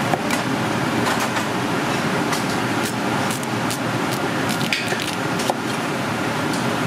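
A large kitchen knife slices through a firm peeled vegetable and taps the wooden cutting board in a series of irregular cuts, roughly two a second. Underneath is a steady, loud rushing background noise.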